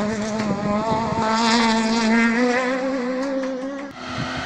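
Racing car engine at high revs under hard acceleration, its pitch climbing steadily through one gear. Near the end it cuts off abruptly to a fainter, more distant engine.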